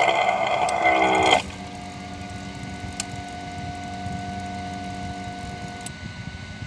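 Small electric water pump of an egg incubator's automatic water refill running: loud for about a second and a half, then a steadier, quieter hum while water fills the humidity reservoir, with a short click about three seconds in. It cuts off suddenly about six seconds in as the float in the reservoir has risen.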